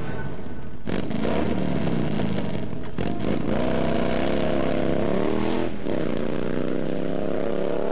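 Motorcycle engine revving as the bike approaches, its pitch rising and falling several times, with surges about one and three seconds in.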